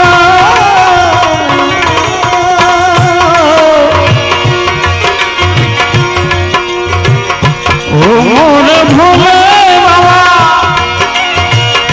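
Gujarati devotional bhajan music: a held, wavering melody line with sliding notes over a steady tabla rhythm, with a quick upward run about eight seconds in.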